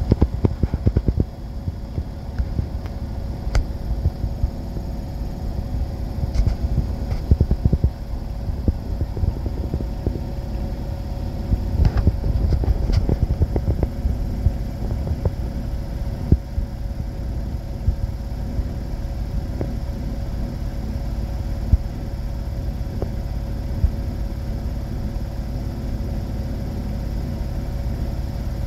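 Miele Novotronic W971 washing machine on a fast spin, about 1400 rpm, with a slightly unbalanced load: a steady motor and drum hum with a low rumble, and many irregular knocks as the drum shakes on its dampers. The knocking is busiest in the first half and thins out as the spin settles.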